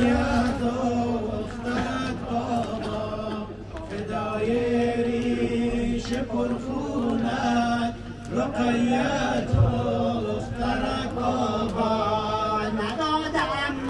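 Men's voices chanting an Afghan noha, a Muharram mourning lament, in long held notes, with scattered sharp strikes from the chest-beating of the matam.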